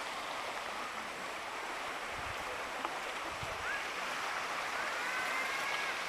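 Steady rush of a stream's running water. Near the end, a few drawn-out, high, slightly wavering tones sound over it.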